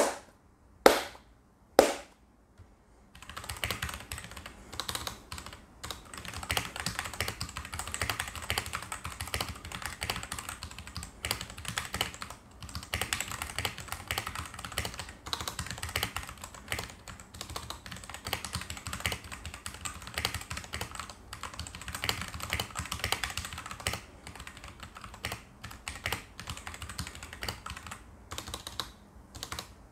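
Typing on an RK860 (RK100-b) mechanical keyboard with stock RK/Huano brown tactile switches. Three loud separate key strikes in the first two seconds, then steady fast typing with short pauses near the end.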